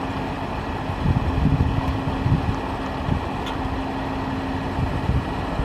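Electric wheelchair lift of a Rollx conversion van running as it unfolds from its stowed position, a steady motor hum with irregular low rumbling over it.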